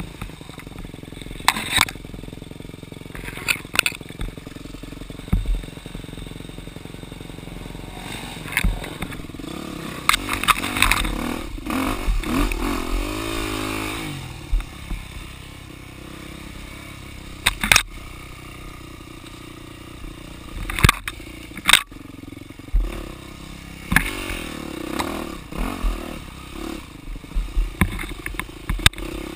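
Dirt bike engine running on a rough woods trail, its revs rising and falling several times, with sharp knocks and clatter from the bike over the bumpy ground.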